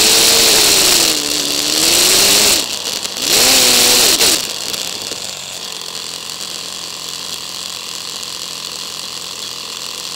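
Motorcycle engine and wind noise played back at four times speed: a high, buzzing whine that rises and falls with the revs, then drops about four seconds in to a steady, quieter hum as the bike stops and idles.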